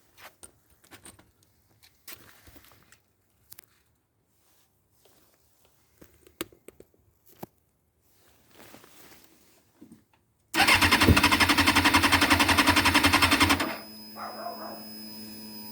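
A few faint clicks and rustles, then about ten seconds in an engine's starter cranks it hard and fast for about three seconds without it catching: a no-start. A quieter steady hum follows the cranking.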